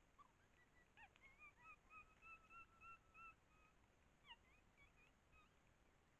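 Faint animal calling: a series of about nine short whistled notes at about four a second, the first few rising in pitch and the rest level. A few short upslurred notes follow about a second later.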